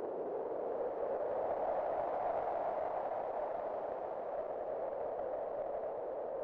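Wind blowing steadily as a hollow, whistling rush centred on one mid pitch, swelling and rising a little about two seconds in, then easing back.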